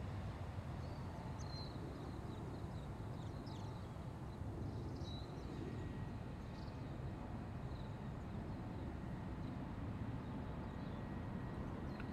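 Outdoor ambience: a steady low rumble of distant city traffic, with a few short, faint bird chirps in the first half.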